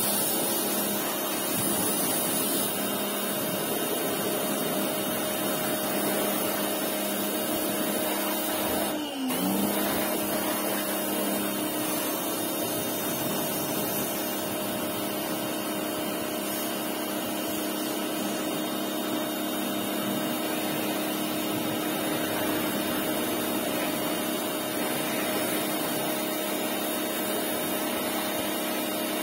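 Electric pressure washer running steadily, its motor-pump hum under the hiss of the water jet spraying the quad bike. About nine seconds in the motor briefly drops in pitch and picks up again.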